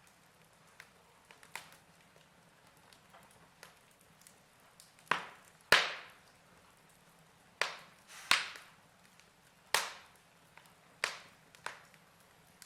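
Fire crackling: scattered small ticks over a faint hiss, then from about halfway through a series of loud sharp pops and snaps, roughly one a second, each dying away quickly.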